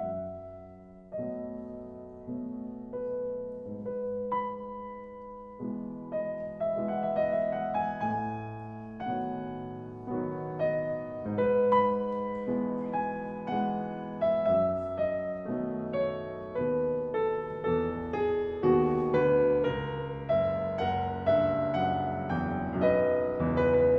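Solo piano music: a gentle melody over chords, sparse at first and growing fuller and louder after about six seconds.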